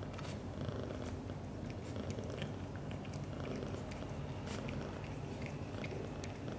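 British shorthair cats purring in a steady low rumble, with light clicks of a tongue as the male licks the female's head.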